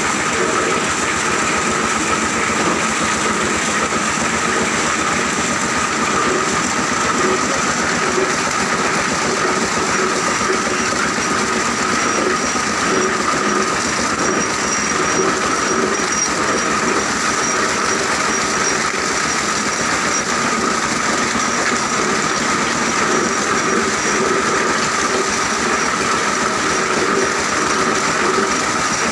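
Plastic recycling machinery, a grinder and a spiked chain conveyor washing shredded plastic sacking, running steadily: a continuous rapid clatter with a steady whine.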